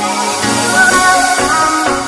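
Background music: a melodic tune with a steady beat.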